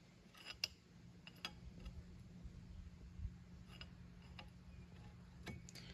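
Faint, scattered metallic clicks, about seven of them, as a John Deere hydraulic pump shaft is pried back and forth with vise grips to check its end play on a dial indicator. A low steady hum runs underneath.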